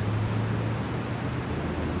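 High-voltage current burning a Lichtenberg fractal into wood: a steady low electrical hum under a constant hissing sizzle as the glowing burn front chars through the grain.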